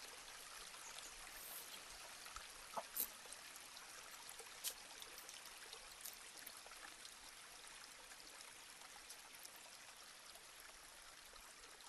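Near silence: faint steady hiss of room tone, with a few faint clicks about three seconds in and again a little later.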